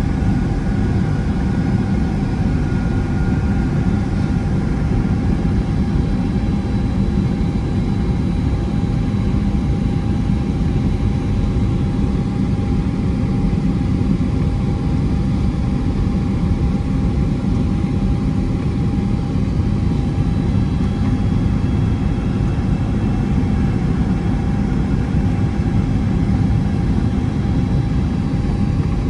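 Steady cabin noise inside a Boeing 767-300ER airliner in flight: a constant deep rumble of engines and airflow with a steady whine on top.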